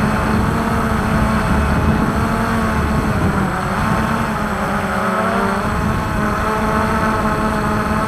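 Multirotor drone's motors and propellers whirring as it flies: a steady hum under several whining tones that waver up and down in pitch.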